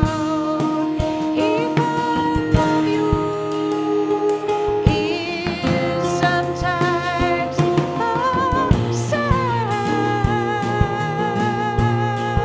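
Live folk-rock band: a woman's voice holding long notes with vibrato, one gliding down about nine seconds in, over two strummed acoustic guitars and a drum kit.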